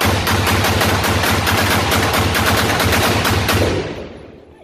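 Sig Sauer M400 AR-15 with a 10.5-inch barrel firing a rapid string of shots, about six or seven a second for about three and a half seconds. The shots echo off the concrete of an indoor range, and the echo dies away over the last second.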